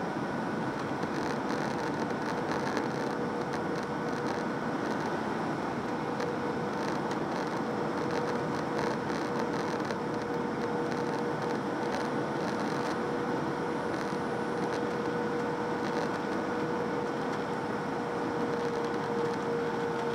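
Cabin noise of a Boeing 757-300 on final approach to landing, heard beside the wing-mounted engine: a steady rush of airflow and engine noise with a steady hum held at one pitch.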